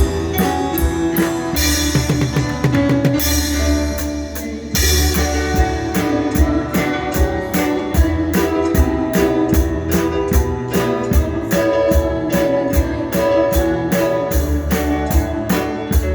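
Band music: guitar over a drum kit, with a steady beat.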